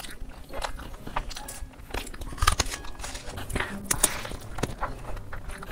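Close-miked chewing and wet mouth sounds of a person eating spiced rice and chicken by hand, stuffing in a big handful of rice: irregular smacks and clicks, the loudest about two and a half seconds in.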